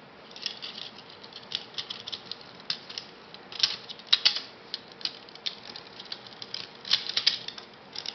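RAP4 T68 box magazine parts clicking and rattling as they are handled and fitted together by hand: irregular sharp clicks and clacks, with the loudest clusters about halfway through and again near the end.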